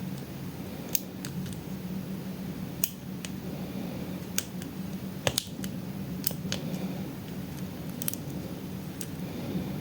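Small sharp metallic clicks at irregular intervals, about a dozen, as a lock pick and tension wrench work the pins inside a pin tumbler lock. A steady low hum runs underneath.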